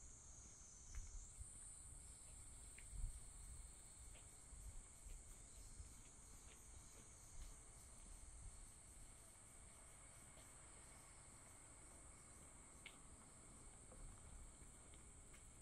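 Faint, steady high-pitched trilling of insects such as crickets, which steps up slightly in pitch about a second in, over a faint low rumble.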